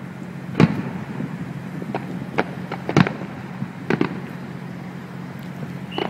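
Aerial firework shells bursting in a string of sharp bangs, the loudest about half a second in and at about three seconds, over a steady low hum.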